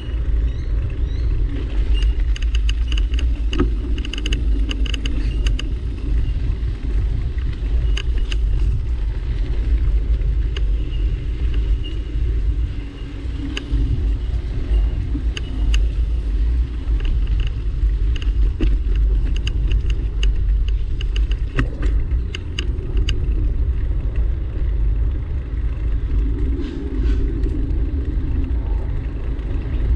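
Wind buffeting and handling rumble on a moving camera's microphone, a loud, unsteady low rumble, with scattered sharp knocks like footsteps on boardwalk planks and a faint, repeating high chirping.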